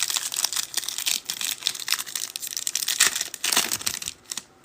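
Foil trading-card pack wrappers crinkling and tearing as packs are ripped open, a dense run of crackles that dies down near the end.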